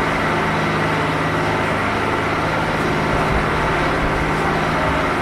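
Jet aircraft engines running steadily on the ground: a constant loud hiss and rush with a low steady hum underneath.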